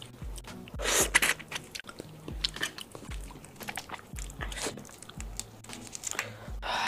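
Crackling and wet squelching as gloved hands peel the shell off a large red prawn in chili oil, a run of short sharp clicks with a louder rustle about a second in and another near the end.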